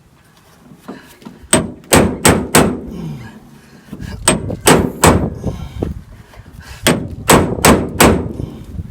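Hammer blows on metal in three quick bursts of three or four strikes each, each blow with a bright metallic ring: a seized screw in a 1966 VW Beetle's body is being knocked loose.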